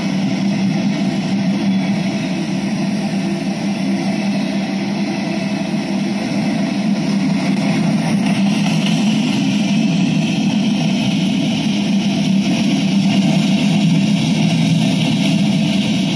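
Freight train of open-top cars rolling past, a steady, continuous rumble of wheels on rail.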